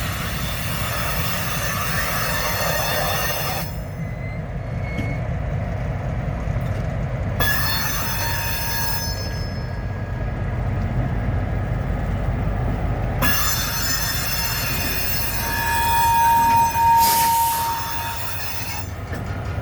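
Train rolling past with a steady low rumble and spells of high-pitched wheel squeal from the rails. The squeal comes and goes three times and is loudest a few seconds before the end.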